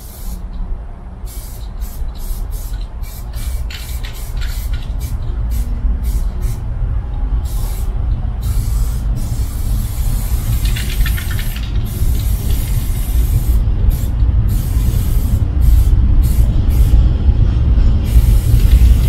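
Aerosol spray paint can hissing in many short bursts, over a steady low rumble that grows louder near the end.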